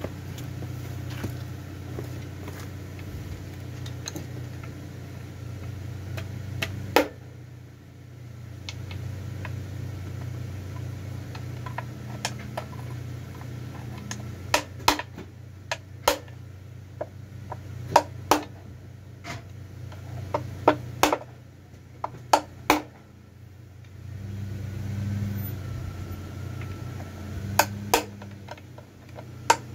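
Sharp metallic clinks and knocks of hand tools working on a removed BMW N47 diesel engine, scattered and then coming in quick clusters through the second half. Under them a vehicle engine runs with a steady low hum that fades for a couple of seconds twice and swells near the end.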